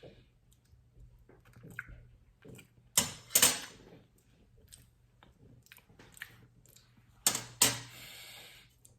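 Cutlery knocking against a dish while cutting into a soft cake: two pairs of sharp clicks, about three seconds in and again near the end, with faint scraping and rustling between.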